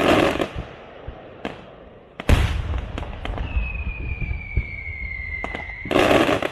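Aerial fireworks display: shells bursting with loud bangs at the start, about two seconds in with a deep boom, and near the end, with crackling pops in between. A long whistle, falling slightly in pitch, runs for about two seconds and ends in the last burst.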